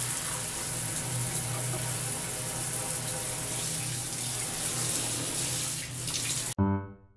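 Water running steadily from a shower into a bathtub, with a low steady hum underneath. It cuts off abruptly near the end, and piano music starts.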